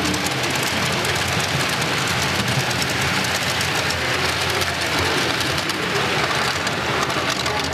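HO scale model freight train rolling along the track, its small metal wheels making a steady, dense, rapid clicking clatter on the rails.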